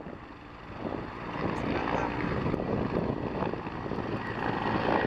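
Firefighting helicopter flying, its rotor and engine a steady, noisy drone that grows louder about a second in.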